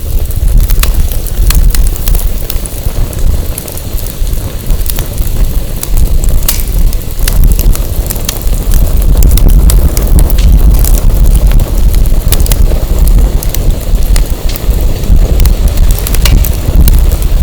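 Firewood burning in a fire pit, crackling with frequent sharp pops, under a heavy low rumble of wind buffeting the microphone, which is the loudest sound.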